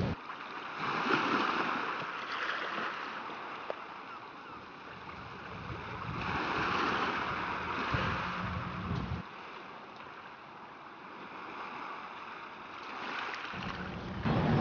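Sea water rushing and splashing against a moving boat, with wind, swelling and fading in slow surges about every five or six seconds.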